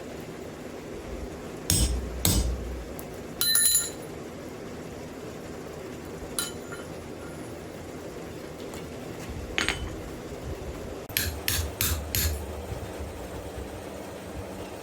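Hand hammer blows on a punch and anvil, driving eye holes into hot wrought iron: about nine separate strikes, a few ringing with a clear metallic clang, ending in four quick blows near the end. A steady low drone runs underneath.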